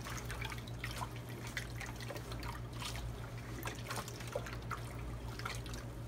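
Dye dripping and trickling from a wet wool skein into a plastic tub of dye bath, with scattered irregular drips and small splashes.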